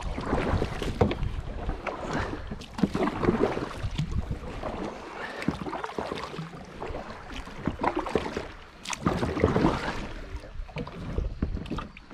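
Kayak paddle strokes dipping and splashing in river water, irregular, about one every second or two.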